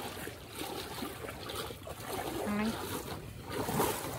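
Muddy water sloshing and churning around a person's legs as she wades, pulling a small boat along through the shallows.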